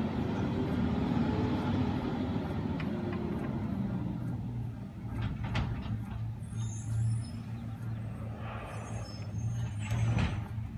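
Peterbilt 320 garbage truck's diesel engine running with a steady low hum, with a few clicks and a short hiss near the end.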